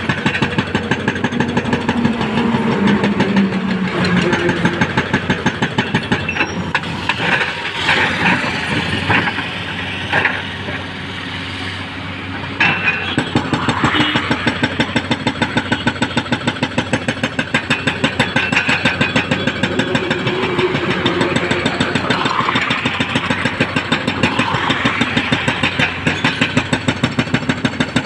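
Hydraulic breaker on a Komatsu excavator hammering concrete in rapid, even blows, with the excavator's diesel engine running under it. The hammering stops for about two seconds near the middle, then starts again.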